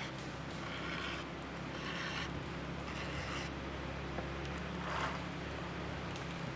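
Round file rasping across the cutters of a 3/8-pitch full-chisel saw chain on a Stihl 661C bar, four strokes about a second apart. After a pause there is one sharper, louder scrape about five seconds in.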